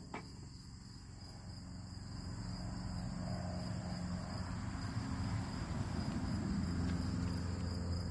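Crickets trilling steadily, over a low humming drone that grows gradually louder.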